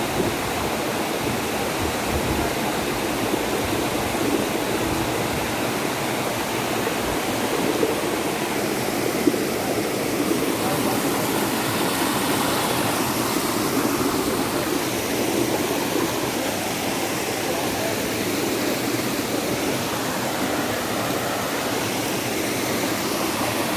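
Waterfall rushing: a steady roar of falling water.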